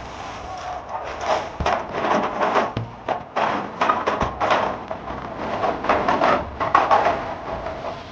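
Irregular rubbing and scraping with a few light knocks, from refrigerator shelves and drawers being handled and cleaned.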